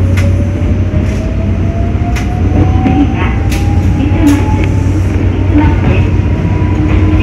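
Electric train running with a whine that rises slowly and steadily in pitch as it picks up speed, over a steady low hum. A few sharp clacks come from the wheels passing over rail joints.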